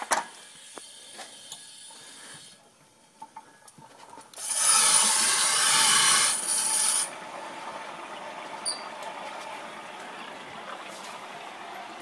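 Water heater's cold water supply valve being opened by hand, after a few light clicks from the valve. Water rushes through the valve loudly for about three seconds, then settles to a steady, quieter hiss as the tank refills.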